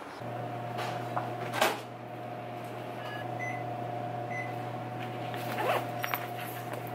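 Steady electrical hum of a running kitchen appliance, with a sharp click about a second and a half in and a lighter click near the end.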